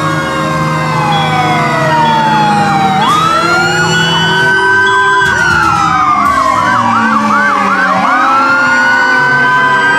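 Several fire truck sirens sounding over one another: a wail that slowly rises and falls over a few seconds, a faster yelp cycling about three times a second in the middle, and an on-off high beeping in the first half, over a steady low rumble.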